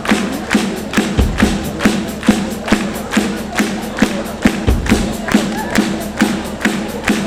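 Live band music driven by a steady, fast drum beat, a little over two strokes a second, with a deep bass swell every few seconds.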